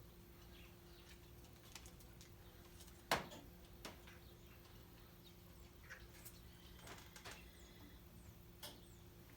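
Near silence with a steady low hum and a few light clicks and taps, the sharpest about three seconds in.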